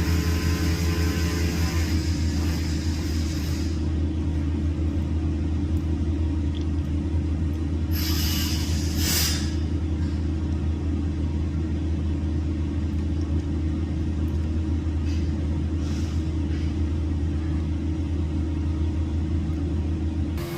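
Heavy diesel engine of a concrete truck running steadily with a deep rumble, and a short hiss about eight seconds in.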